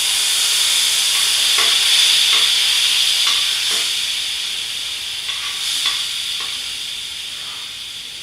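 Butter sizzling loudly in a hot skillet, the hiss slowly dying down, with a utensil scraping the pan a few times.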